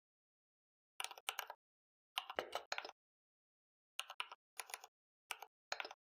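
Computer keyboard keystrokes, typing a short command in a few irregular bursts of quick clicks with pauses between them.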